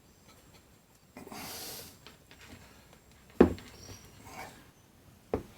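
A short, breathy hiss like a sharp breath out through the nose, then two sharp knocks as grinder parts are handled on the workbench, with faint handling noises between.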